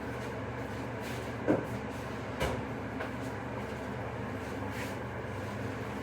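Steady background hum with two short knocks, the first and louder about a second and a half in, the second about a second later.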